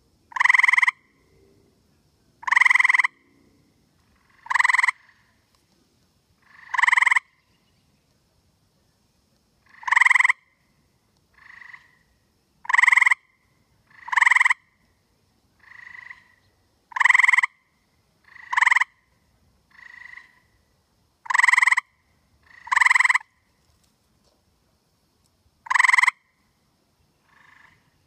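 A tree frog's mating calls: short rasping trills of about half a second, repeated every one and a half to two seconds, with a few quieter calls between the loud ones.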